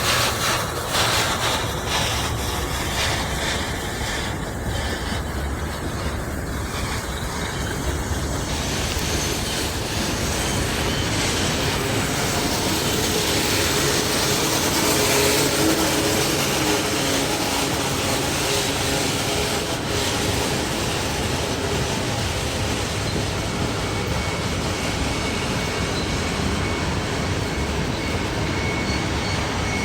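Norfolk Southern train rolling down a steep mountain grade: a steady, continuous rumble of cars and wheels on the rails, with faint held tones in the middle.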